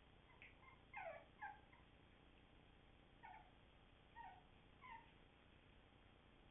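Puppies giving faint, short, high-pitched whimpers, each call dropping in pitch: a quick cluster about a second in, then three more spaced out later.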